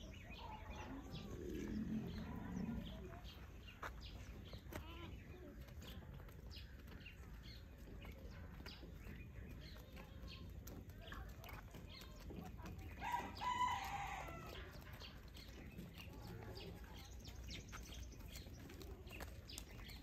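A rooster crowing once, a pitched call of about a second two-thirds of the way through, over a faint farmyard background of many small clicks and ticks.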